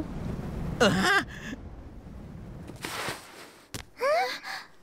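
Cartoon sound effects and vocalisations: a low rocket-jet rumble that fades out about a second in, a short falling voiced gasp at about one second, a brief whoosh and a click, then a short rising sigh-like voice near the end.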